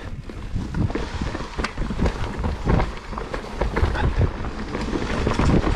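Mountain bike riding down a dirt singletrack: wind buffeting the camera microphone over a low tyre rumble, with many irregular clicks and knocks from the bike rattling over roots and rocks.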